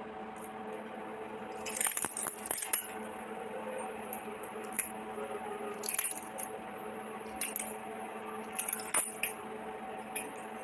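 Miniature stainless-steel toy kitchen utensils and pots clinking and rattling as they are handled: scattered light metallic clinks, in small clusters about two seconds in and again near the end, over a faint steady hum.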